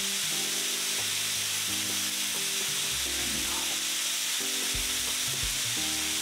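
Thin-sliced beef brisket sizzling steadily on a tabletop grill plate, with soft background music of held chords underneath.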